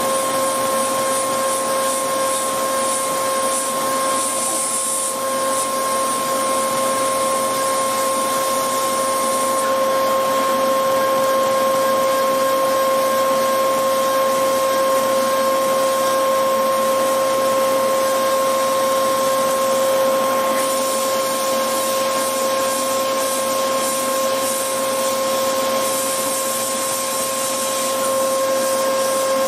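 CNC milling machine's spindle cutting metal with an end mill: a steady, even hum of two fixed tones over a hiss. A higher hiss that is present at first drops out for about ten seconds midway, then returns near the end.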